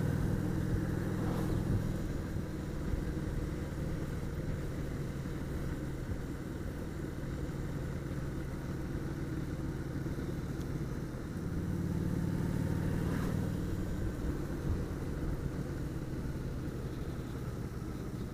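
Motorcycle engine running on the move, with steady wind and road noise. The engine note is strong at first and eases off about two seconds in. It swells again for a couple of seconds around twelve seconds in, then settles.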